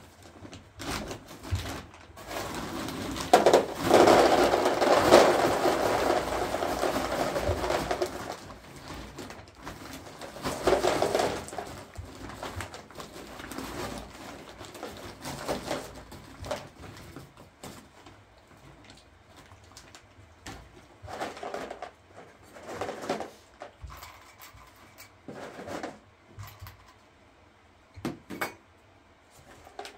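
Plastic bag rustling and crinkling as it is handled. A few seconds in there is a long, loud stretch of it, then a shorter burst, followed by scattered lighter rustles and small knocks.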